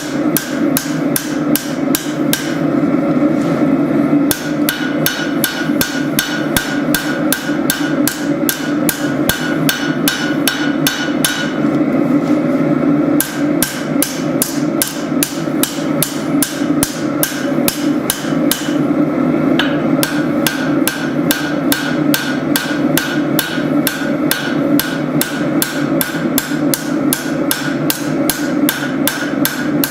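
Hand hammer striking hot spring steel on an anvil, forging a blade: even blows about three a second, with three short pauses, over a steady low rumble.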